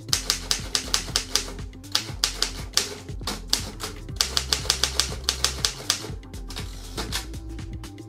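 Underwood Standard manual typewriter typing: quick runs of sharp keystroke clacks with short pauses between them, stopping near the end, over background music.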